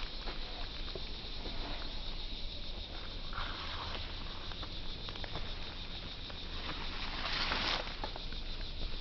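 Outdoor ambience: insects keep up a steady high-pitched trill, with scattered clicks and two brief swells of rustling noise, about three seconds in and near the end.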